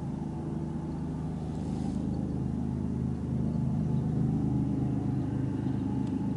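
A steady, low engine drone that grows gradually louder.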